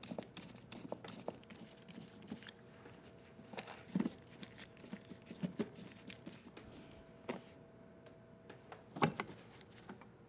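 Faint clicks and light taps of a screwdriver turning out the screws of a truck's door sill plate, with a few louder knocks, the last about nine seconds in as the sill plate is lifted free.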